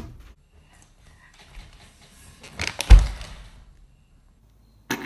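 Rustling that peaks in one heavy thump about three seconds in, with a short burst of noise near the end.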